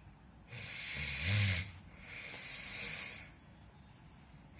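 A sleeper snoring: one loud, low-pitched snore about half a second in, then a long breathy rush of air.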